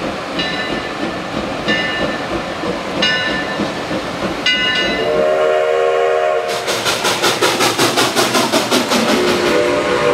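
Steam locomotive: its bell rings four times, about every second and a half, then its whistle blows a chord about halfway through. The engine then works with fast, even exhaust chuffs, and the whistle sounds again near the end.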